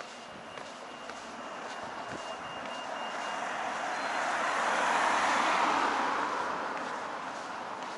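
A car passing on the road alongside: tyre and engine noise swells as it approaches, is loudest about five seconds in, then fades as it goes by.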